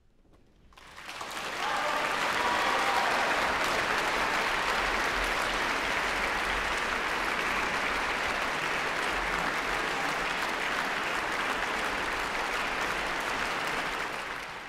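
Audience applauding. The applause swells up about a second in, holds steady, and dies away near the end.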